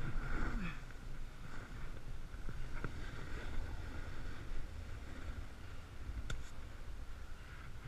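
Snowboard sliding and scraping over snow at speed: a steady hiss over a low rumble, with a couple of sharp clicks.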